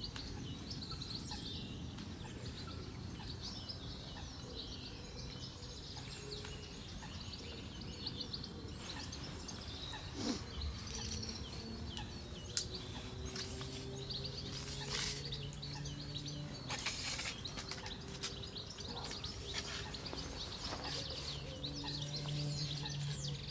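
Songbirds chirping and singing over a steady outdoor rumble, with a few sharp clicks and knocks from handling fishing tackle in the middle stretch. A faint low hum comes and goes.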